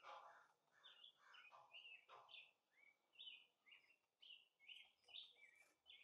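Faint songbird calls: a quick run of short, clear notes, some sliding down, starting about two seconds in, after a few brief rustling bursts.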